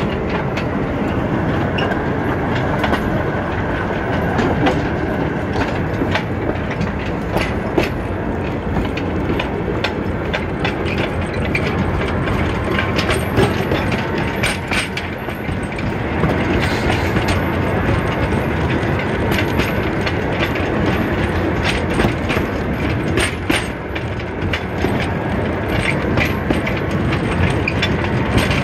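Small 18-inch gauge train of open manrider wagons behind a battery-electric locomotive, running along the track: a steady rattle of wheels on rails, scattered through with frequent clicks and knocks, heard from aboard the wagon.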